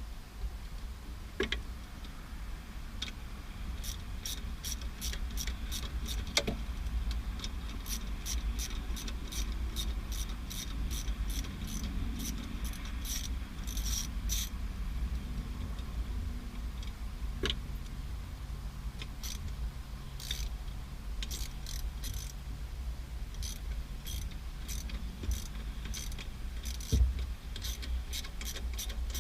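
Socket ratchet clicking in runs of about three clicks a second as the stock shifter's bolts are backed out, with a single knock near the end.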